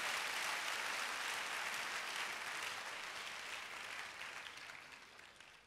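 Congregation applauding: many hands clapping steadily, then dying away over the last second or two.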